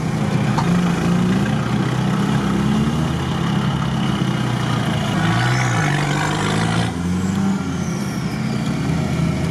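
Off-road vehicle's engine revving up and down under load in deep mud, heard from inside the cab, with a rush of noise about five seconds in.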